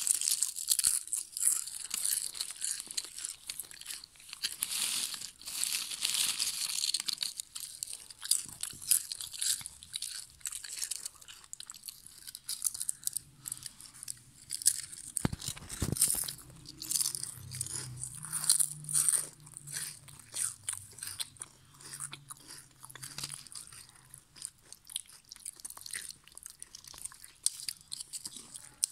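Lay's potato chips being bitten and chewed, a continuous run of irregular, crisp crunches.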